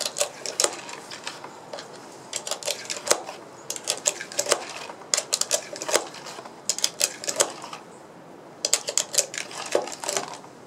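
UPLULA magazine loader working 9mm cartridges into a Smith & Wesson M&P9 magazine: irregular runs of sharp clicks and snaps as the loader is squeezed and pushed down and each round is pressed in, with two short pauses.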